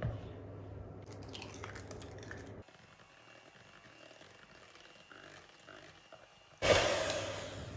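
Soft, wet mixing sounds of banana bread batter being stirred in a bowl. About a second before the end comes a sudden, louder rushing noise lasting about a second.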